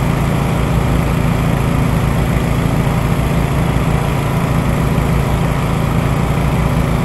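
A small engine running steadily at constant speed, with an even low throb and no change in pitch.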